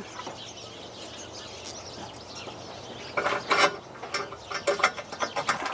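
Quick metallic clicks and clinks of a bolt, washer and nut being fitted by hand into the steel A/C cradle's mounting hole, coming in two bunches from about three seconds in.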